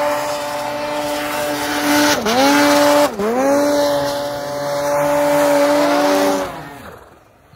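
Snowmobile engine running at high revs as the sled ploughs through deep powder snow. The revs drop sharply and climb back twice, about a second apart, then the sound fades out near the end.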